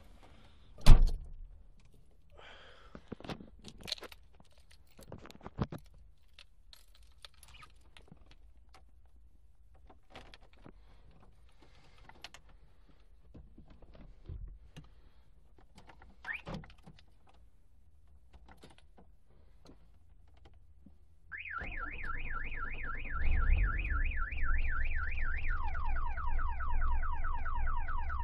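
Car alarm siren sounding: a fast warbling tone that switches to repeated falling sweeps, starting about 21 seconds in. Before it come scattered clicks and handling knocks in the car's cabin, with one loud thunk about a second in.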